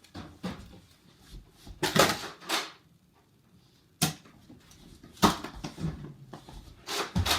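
A few scattered knocks and short clattering thumps with quiet gaps between: a cluster about two seconds in, a sharp click near the middle, and more toward the end.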